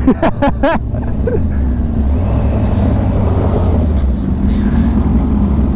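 Supercharged inline-four engine of a 2016 Kawasaki Ninja H2 running steadily under way, with wind noise on the microphone. A few short bits of voice come in the first second.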